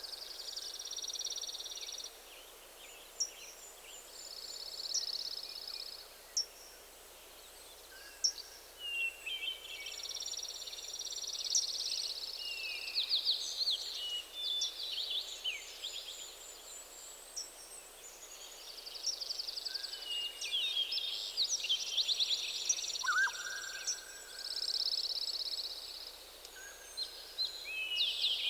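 Several songbirds singing at once: repeated high trilled phrases of a second or two, quick chirps and sweeping notes between them, and a few short, lower whistled notes, over a faint steady hiss.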